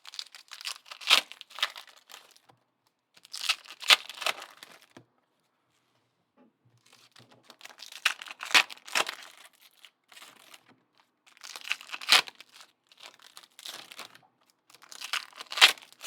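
Trading card pack wrappers being torn open and crinkled in several bursts of a second or two, with short pauses between.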